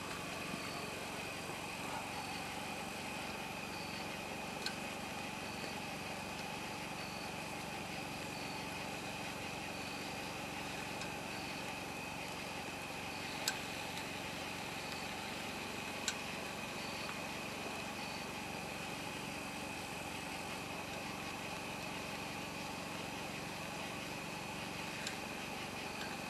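Chicken wings sizzling on a grill grate over an open wood fire, a steady hiss with a couple of sharp clicks. Under it runs a steady low mechanical hum, and a faint high chirp repeats about once a second.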